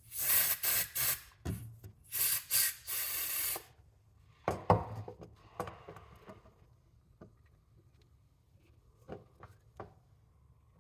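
Aerosol brake parts cleaner hissing from its can in short pulsing bursts, in two spells over the first few seconds, as it is sprayed onto motorcycle brake master cylinder parts. A single knock follows, then a few light taps.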